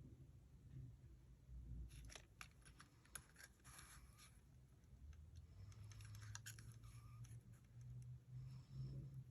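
Near silence with faint scattered clicks and light scratching of paper pieces being handled on a craft table, in two short clusters, over a low steady hum.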